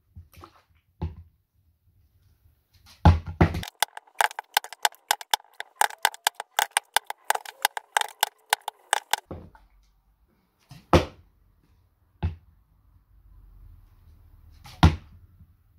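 Partly filled plastic water bottles being flipped and landing on a wooden board in cap-on-bottom stacking attempts, with sharp knocks. A rapid run of clicks and knocks lasts several seconds in the middle, followed by single knocks, the loudest near the end.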